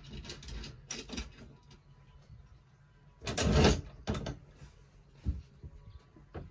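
Short knocks and clicks of hand work on the engine's parts, with one louder clatter about three seconds in and single knocks after it.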